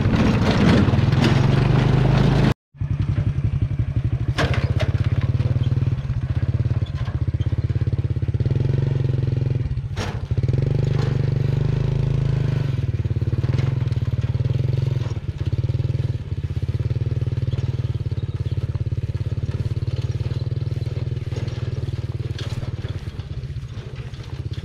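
Motorcycle engine running steadily under way, with a brief dropout about two and a half seconds in.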